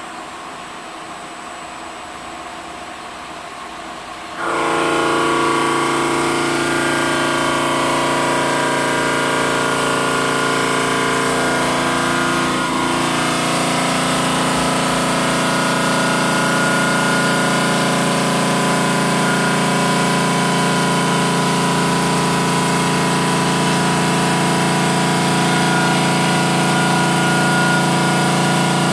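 Park Industries Saber 5-axis CNC bridge saw cutting a stone countertop slab. A steady machine hum gives way suddenly, about four seconds in, to a much louder, steady ringing whine of several held tones as the blade works through the stone and the head feeds along the cut.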